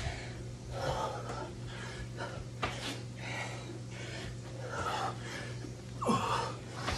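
A man breathing hard and gasping between burpee reps, deep breaths in and out about every two seconds. There is one sharp click midway and a short falling grunt near the end.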